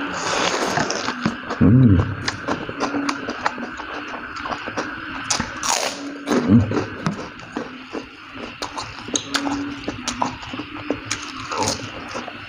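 A man slurping spicy instant noodles from a bowl, then chewing noisily with wet clicks and smacks. About six seconds in he blows out a loud breath against the chili heat, with two short vocal grunts along the way.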